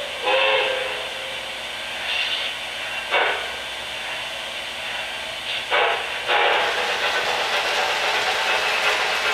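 K-Line O-gauge model steam locomotive's electronic sound system: a short steam-whistle toot about half a second in, then a few separate steam hiss blasts, and from about six seconds in a steady hiss.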